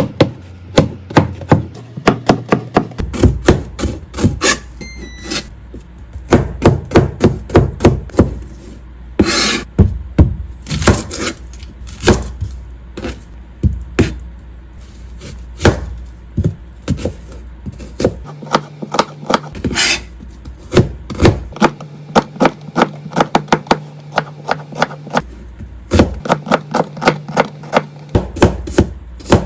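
Knife chopping on a wooden cutting board in quick runs of sharp strikes, several a second, with short pauses between runs.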